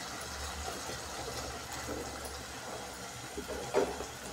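Onion and tomato frying in oil in an aluminium pot, a steady soft sizzle, with one brief knock near the end.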